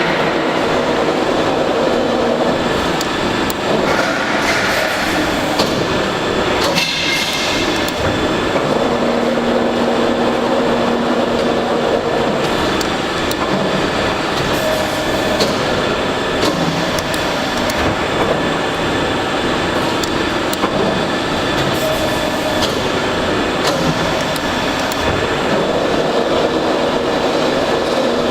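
Hydraulic CNC press brake running while bending sheet metal: a steady mechanical din with a faint changing hum and scattered clicks and clanks.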